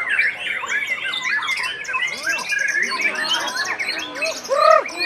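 White-rumped shama singing a fast, varied run of whistles and chirps, with other songbirds singing at the same time. A louder pair of low arching whistles comes near the end.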